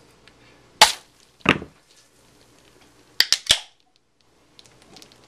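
A knife punctures a beer can with a sharp pop, followed about half a second later by a second pop with a short spray as beer bursts out. About two seconds later comes a quick run of three or four sharp snaps as the can's pull-tab is popped open to shotgun the beer.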